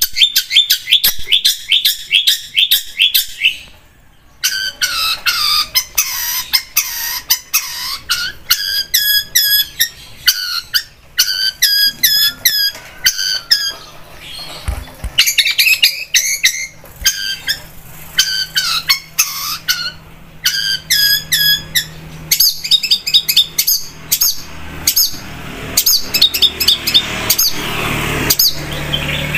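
Long-tailed shrike (cendet) singing a rapid, chattering song of fast repeated high notes, in runs broken by short pauses. A faint steady low hum comes in under it and grows near the end.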